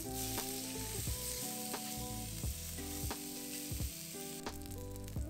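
Chicken thigh skin sizzling skin side down on a hot cast iron griddle, a steady frying hiss as the fat renders and crisps. Light background music with plucked notes plays under it.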